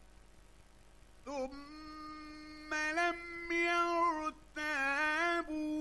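A male Quran reciter chanting in a melodic, drawn-out style. After a short pause his voice comes in about a second in and holds long ornamented notes that glide up and down in pitch, with two brief breaks.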